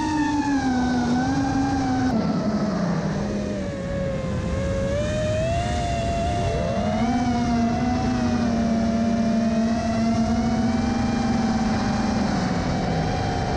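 Electric motors of an FPV quadcopter whining, the pitch dropping and rising with the throttle, with a quick climb in pitch about six and a half seconds in, and wind rushing over the onboard camera's microphone.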